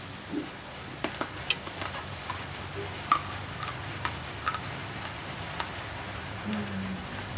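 Raw, uncooked rice grains crunching between the teeth as a mouthful is chewed: a string of sharp, irregular crunches, one or two a second.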